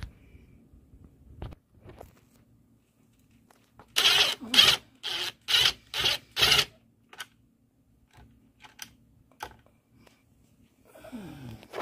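Cordless impact driver turning a screw in the mounting plate on the back of a TV, run in six short bursts about two a second. Near the end comes a brief whir that falls in pitch.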